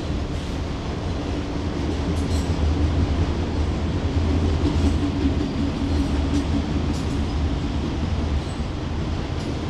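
Freight train of enclosed autorack cars rolling past at steady speed: a continuous low rumble of wheels on rail, with a few faint clicks and rattles from the cars.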